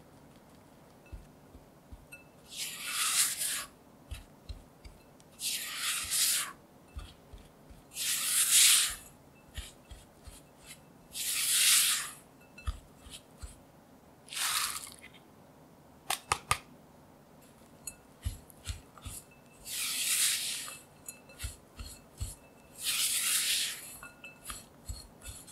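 A silicone spatula scraping through crumbly cookie dough against a glass bowl, a rasping stroke every few seconds with light knocks in between, as flour and ground almonds are cut into the wet mixture. A quick run of sharp clicks comes about two-thirds of the way through.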